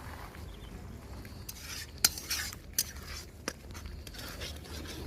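A spoon stirring curry in a cooking pan, scraping with three sharp clinks against the pan.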